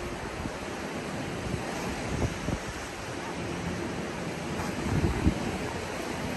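Wind buffeting the microphone over a steady rush of waves on the shore, with a few brief louder gusts about two and five seconds in.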